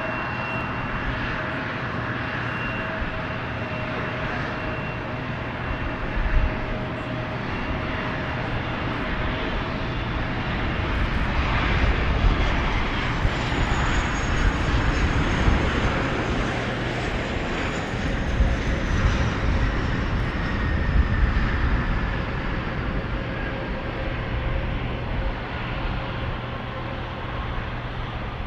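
Airliner engines running as a plane passes, a steady rushing noise with a whine that slides down in pitch in the second half.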